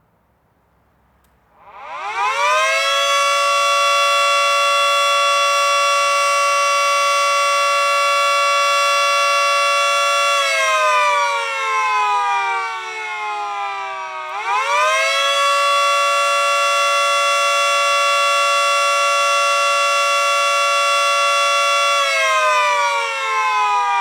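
Miniature Federal Signal 2T22A two-tone siren winding up about a second and a half in to a steady two-note chord and holding it for about eight seconds. Its pitch then sags as it slows, it winds back up to hold the chord again, and it sags once more near the end.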